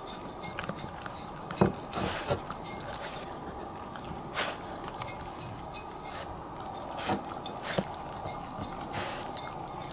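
Bichon Frise dog licking an empty ceramic plate clean, with scattered clicks and knocks as her tongue and nose push against the plate.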